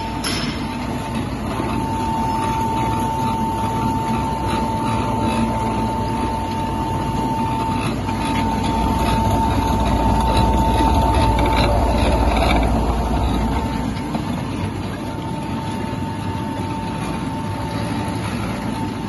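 Electric roller dough sheeter running, with bun dough being passed through its steel rollers: a steady high whine from the drive over a low rumble. The rumble eases about two-thirds of the way through while the whine carries on.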